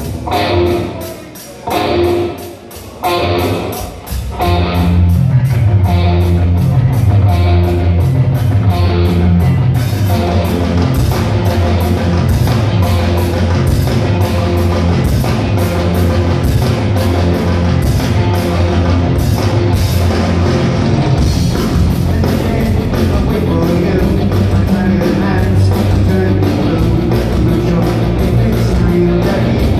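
Live rock band with electric guitars, bass guitar and drum kit. A few chords ring out alone at the start, then the full band comes in about four seconds in and plays on at a steady driving beat.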